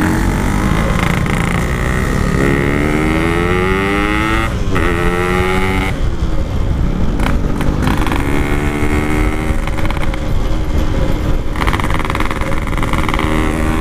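Two-stroke Yamaha RX-King motorcycle being ridden hard, its revs climbing in long pulls and dropping sharply at each gear change, several times over, with wind rumble on the microphone.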